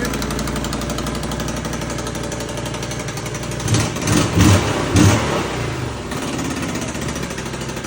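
Can-Am Outlander 570's V-twin engine running at a steady idle, with three short throttle blips about four to five seconds in. The engine is running again after a crank-no-start repair.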